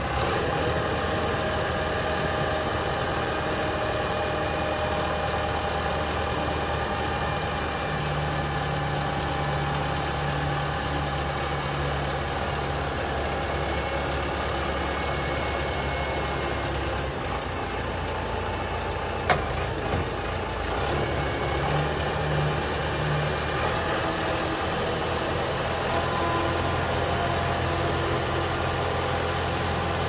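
Self-loading concrete mixer's diesel engine running steadily, its note shifting now and then as the mixing drum assembly swings round. A single sharp knock comes about two-thirds of the way through.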